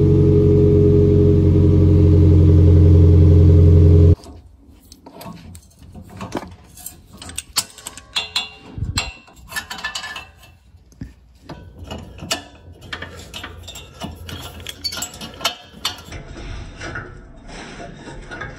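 2005 Toyota Prius's 1.5-litre four-cylinder engine running through a straight pipe with no muffler: a loud, deep, throaty drone that grows slightly louder and cuts off about four seconds in. After that come irregular clicks and metallic taps of hands working the rusty exhaust pipe flange and its springs under the car.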